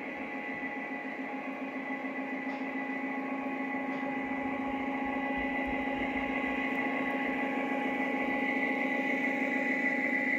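Lionel Legacy GP30 model diesel locomotive running on track with its train of passenger cars: a steady hum with a high whine over it, growing gradually louder as the train draws near.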